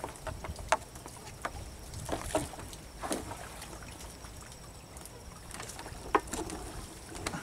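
Bamboo-framed anco shrimp lift net being lowered into a river: scattered knocks and splashes as the bamboo frame and net meet the water, with a low wind rumble on the microphone.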